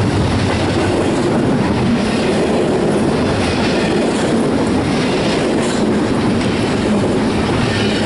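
Double-stack container well cars of an intermodal freight train rolling past: a loud, steady rumble of steel wheels on the rails.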